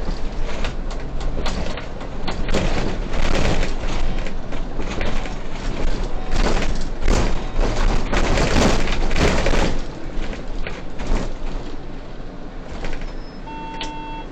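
Solaris city bus driving, heard from the driver's cab: road noise with a dense, irregular rattling and knocking from the body and fittings, loudest in the middle and easing off later. A short electronic tone sounds near the end.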